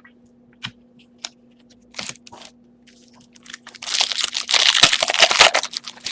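Foil wrapper of a trading card pack being handled and torn open: a few scattered clicks, then a dense run of crinkling and crackling from about four seconds in.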